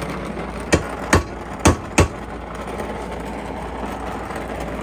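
Steady hiss of a gas torch heating a Mauser military bolt handle clamped in a steel vise. Four sharp knocks come in the first two seconds as the hot handle is worked forward.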